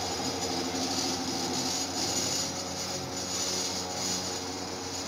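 500 W spindle of a home-built CNC router running while it mills a test square and circle in a sheet on the bed, with a steady high-pitched cutting noise that rises and falls slightly as the tool moves. The sheet vibrates a little because it is not clamped tightly.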